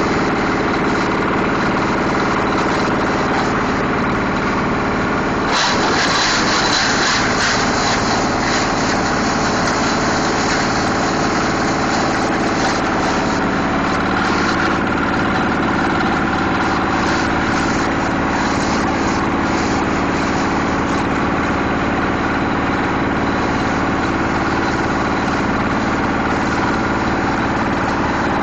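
Plastic shredder machine running steadily with a constant mechanical hum. About five seconds in, a sudden louder, harsher noise comes in and dies away over several seconds.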